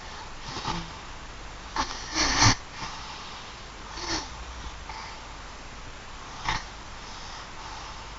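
Snoring: short, snorting breaths at uneven intervals, the loudest a little over two seconds in, over a steady faint hiss.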